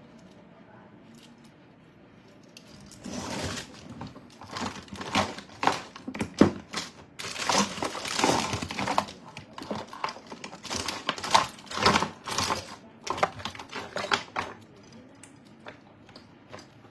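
Hands rummaging among small objects on a tabletop: a quick, uneven run of clicks, taps and crinkling rustles, starting about three seconds in and stopping a couple of seconds before the end.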